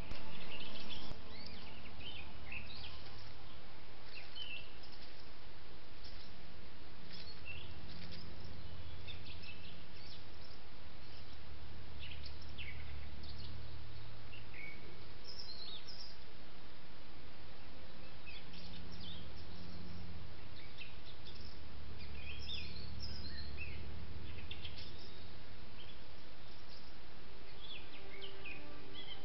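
Small birds chirping and calling now and then over a steady background hiss, with a low rumble that comes and goes. There is a brief louder noise in the first second.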